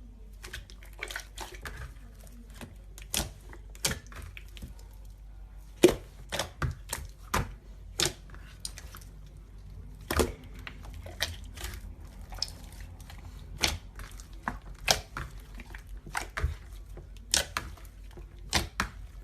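Slime being squeezed and poked by hand, giving irregular sticky clicks and pops, a few a second, some louder than others.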